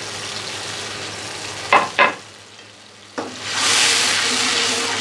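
Aluminium pot of onion-tomato masala cooking on the flame. About two seconds in, a spoon taps sharply twice as paste is scraped in. After a brief lull, a loud, steady sizzling hiss follows as a ladle stirs the pot.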